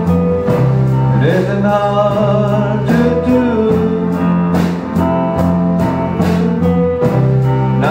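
Live band playing a slow ballad: electric guitars and keyboard over a held bass line, with a steady drum beat and a melody line that glides in pitch.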